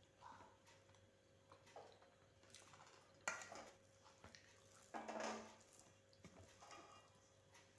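Faint eating sounds at a plate of rice and dal: a sharp click about three seconds in and a short, louder clatter or mouth sound around five seconds, with scattered light clinks between.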